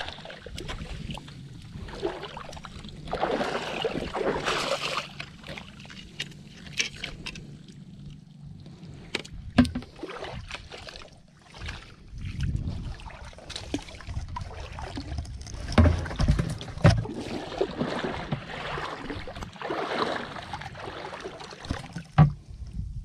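Shallow water sloshing and splashing in uneven bursts as someone wades through it and sweeps long-handled scoop nets, with several sharp knocks in the second half.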